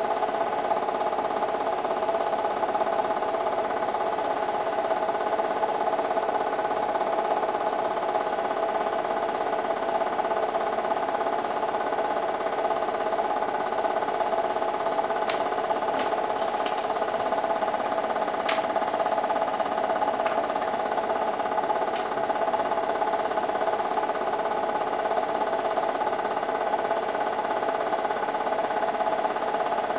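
8mm film projector running, a steady mechanical whir and rattle, with a few faint clicks midway.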